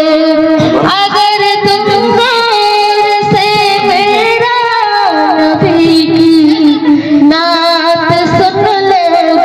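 A high solo voice singing a devotional Urdu naat, holding long notes and sliding into wavering runs between them.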